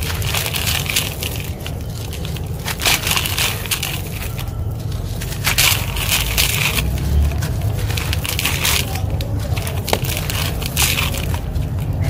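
Soft, dusty concrete chunks crushed and crumbled by hand, gritty pieces and powder falling into a plastic mesh basket: dry crunching in repeated bursts with short pauses between squeezes.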